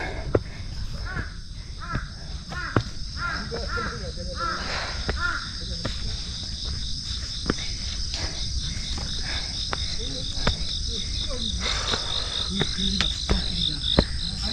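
A steady, high insect chorus with a fast even pulsing, and footsteps on stone trail steps as irregular knocks. A run of short arched calls comes in the first few seconds.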